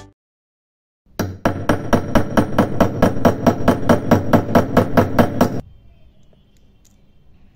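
A small hammer taps rapidly on a brass bezel ring fitted over a steel mandrel, about five even, ringing metallic strikes a second. The tapping starts about a second in and stops abruptly, leaving faint workshop noise.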